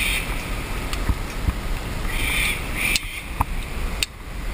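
Sulphur-crested cockatoo calling: one call ends just as the sound begins, then two more screeching calls come about two and a half and three seconds in.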